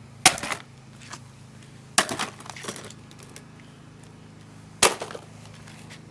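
A two-pound hammer striking a coffee machine in three heavy blows about two seconds apart, the second followed by a short clatter of breaking pieces.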